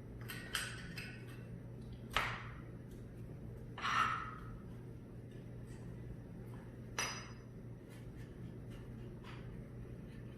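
Scattered sharp metallic clinks and taps of hand tools and loose parts against the Warn 8274 winch's metal housing during disassembly: about four distinct clinks, the one near the middle ringing briefly.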